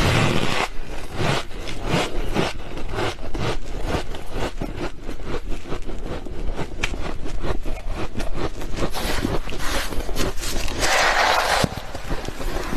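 Freezer frost being chewed close to the microphone: a rapid run of crisp, squeaky crunches, with a longer rasping sound near the end.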